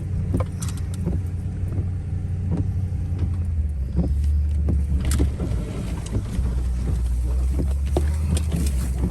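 Four-wheel-drive vehicle driving off-road over rough ground: a steady low engine and road rumble with scattered knocks and rattles.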